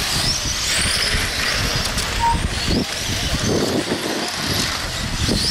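1/8-scale brushless electric on-road RC cars racing on the track, their motors whining in high pitches that rise and fall as they speed up and slow. A short beep sounds about two seconds in.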